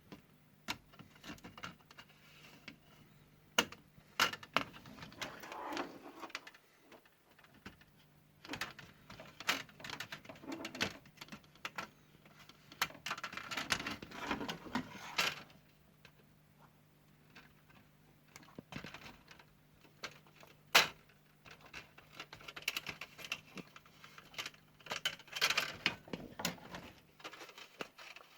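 Irregular small clicks, taps and rustling from tools and small parts being handled on a workbench, in several busy spells with one sharp click standing out about two-thirds of the way through, over a faint steady low hum.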